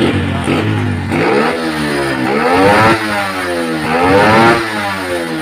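Carburetted motorcycle engine with a PE28 carburettor and BRT racing CDI ignition being revved hard twice, the pitch climbing to a peak about three seconds in, dropping sharply, then climbing to a second peak near the end before falling back. The racing CDI is fitted to do away with the stock rev limiter.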